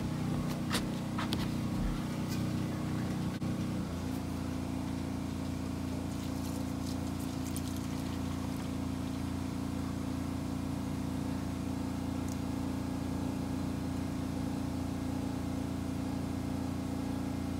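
An engine running steadily in the background, changing to a slightly different steady pitch about four seconds in. A few faint clicks come in the first two seconds.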